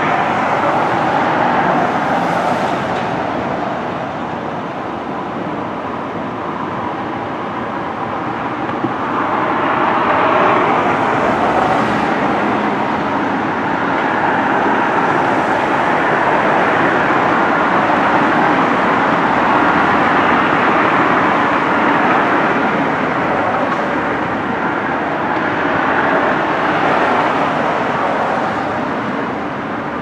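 Road traffic going by: a steady wash of engine and tyre noise that swells and eases as vehicles pass.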